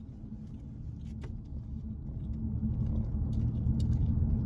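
Low, steady rumble of a car on the move, getting louder about halfway through.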